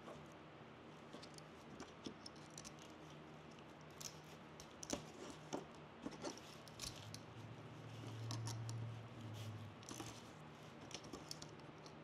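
Rustling and crackling of fresh evergreen sprigs and moss being bound onto a wreath frame with a spool of floral wire, with scattered sharp clicks. A low hum swells and fades about eight seconds in.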